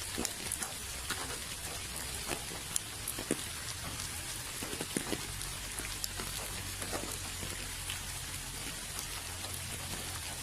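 Steady rain falling, with individual drops ticking sharply at irregular moments over the even hiss, and a faint low steady rumble underneath.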